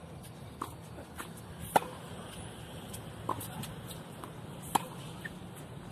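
Tennis rally: sharp pops of rackets striking the ball, the two loudest about two seconds in and near the end, with fainter hits and ball bounces between them, roughly one every second and a half.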